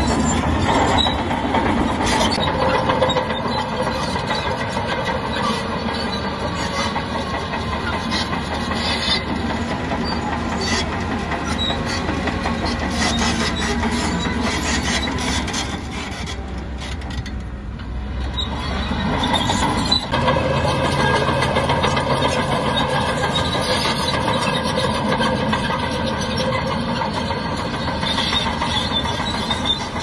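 Shantui crawler bulldozer's diesel engine working, with a steady metallic clatter from the tracks. The engine eases off about sixteen seconds in and revs back up around twenty seconds.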